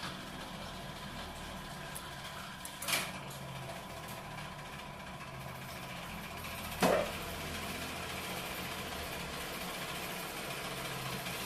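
Metal lathe running with a steady hum, with a short clack about three seconds in and a louder clunk about seven seconds in. After the clunk the running gets slightly louder as the chuck holding the cylinder head turns again.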